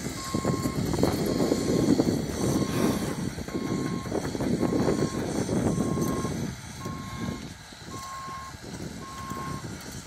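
Tracked excavator's travel alarm beeping at one steady pitch, a little more than once a second, over the machine's diesel engine running; the engine noise drops off about two-thirds of the way through while the beeping carries on.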